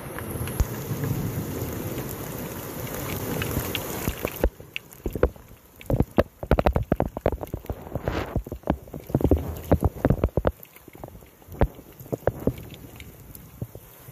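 Thunderstorm rain and wind: a dense rushing hiss for the first four seconds or so, then it drops away and many irregular, close sharp taps and knocks take over.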